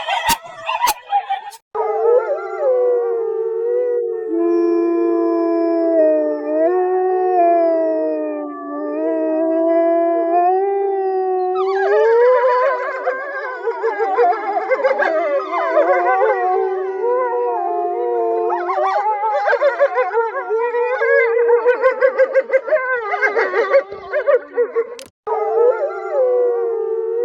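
A pack of wolves howling: at first a few long, held howls that waver slowly in pitch, then from about twelve seconds in many voices howling over each other in a chorus. The sound breaks off abruptly for a moment near the start and again near the end.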